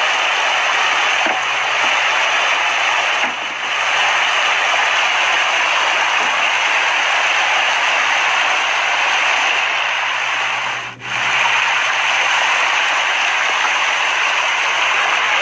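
A dense mass of fish thrashing and splashing at the surface of shallow water in a feeding frenzy, a continuous hissing churn of splashes. It dips briefly about three seconds in and drops out for a moment near eleven seconds.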